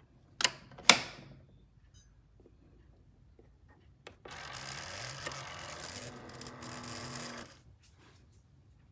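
Keurig K-Express single-serve coffee maker: two sharp clicks in the first second, then another click about four seconds in, followed by about three seconds of steady hissing machine noise that cuts off.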